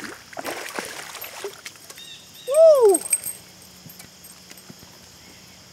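Hooked largemouth bass thrashing and splashing at the surface as it is landed. About two and a half seconds in, a loud short call that rises and falls in pitch.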